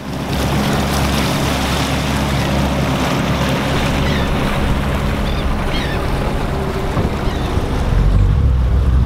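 Center-console boat under way: steady engine drone with water rushing past the hull and wind buffeting the microphone, the wind rumble growing stronger near the end.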